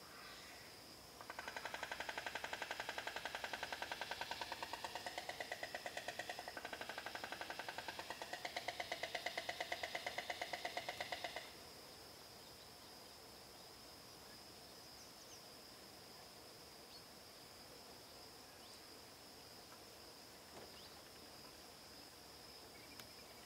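Frog calling in one long rapid pulsed trill, its pitch shifting a little as it goes, starting about a second in and stopping at about eleven seconds.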